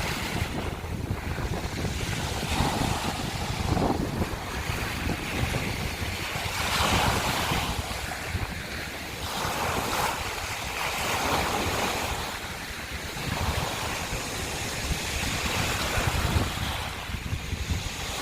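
Sea waves breaking and washing over a beach of crushed scallop shells, surging every few seconds, with some wind buffeting the microphone.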